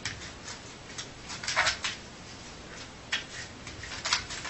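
A dreaming dog's sleep noises: a string of short, muffled huffs and yips at irregular intervals, the loudest about a second and a half in.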